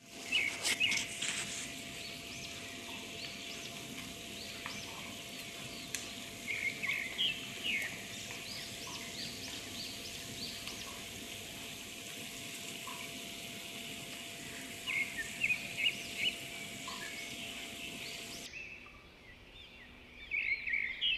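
Ring donuts deep-frying in a pot of hot oil: a steady sizzle, with short bursts of high bird chirps over it. The sizzle cuts off about three-quarters of the way through, and the chirping comes back near the end.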